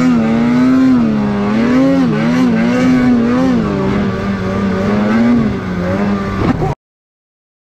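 Snowmobile engine running under throttle while riding through deep snow, its pitch rising and dipping over and over as the throttle is worked, over a steady rushing noise. It stops abruptly about a second before the end.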